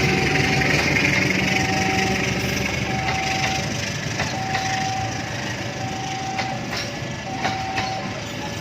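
A train rolling past, its noise slowly fading, with a few sharp clicks from the wheels and track. Through it, a railway level-crossing warning signal beeps about once a second.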